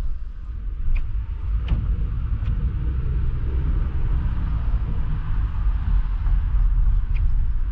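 Low, steady rumble of a car driving, picked up by a dashboard camera inside the car. It rises sharply at the start as the car pulls away from a stop and moves through an intersection. A few light clicks are heard.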